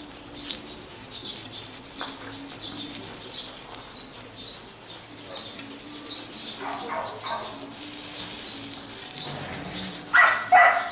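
Paste wax sizzling and crackling as it is rubbed onto hot forged iron, hot enough that the wax smokes off. A short, louder pitched burst breaks in near the end.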